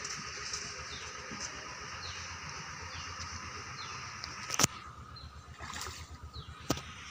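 Rural outdoor ambience: a steady high hiss with short falling bird chirps about once a second. Two sharp clicks cut through it, the louder one about four and a half seconds in and another near the end.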